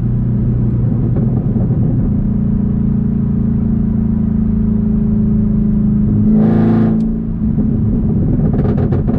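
Supercharged 6.2-litre LT4 V8 of a 2022 Camaro ZL1 through an H-pipe catback exhaust, heard from inside the cabin while driving: a steady low exhaust rumble. It swells briefly about six seconds in, eases off, and then gives a few short crackles near the end.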